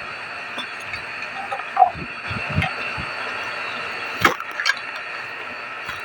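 Refrigerant vacuum pump running steadily while the air-conditioner system is evacuated, with a few sharp knocks and clinks of parts being fitted about two seconds in and again past four seconds.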